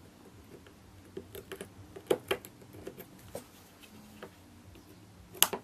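Small metallic clicks and taps of circlip pliers working a circlip onto a Mobylette engine's piston, with a few sharper clicks about two seconds in and near the end.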